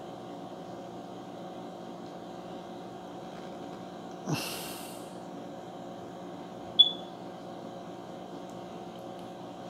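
A steady machine-like hum, with a brief rustle about four seconds in as a body settles onto the ground, and a short high chirp near seven seconds.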